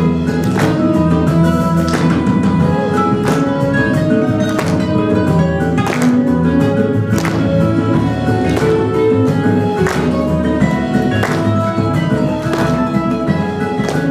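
A song performed live by a solo singer over an accompaniment in a Latin, flamenco-like style, with a strong beat about every second and a quarter.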